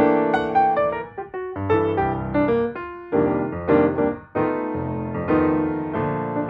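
Background piano music: a keyboard melody with chords, notes struck one after another.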